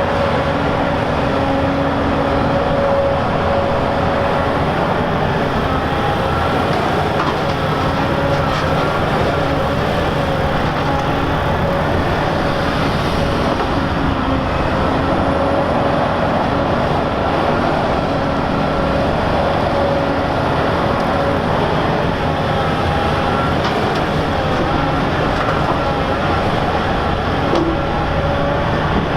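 Heavy diesel earthmoving machinery running steadily under load: a Volvo EC950F excavator at work with Volvo A60H articulated dump trucks, with a steady whine that wavers slightly in pitch over the engine noise.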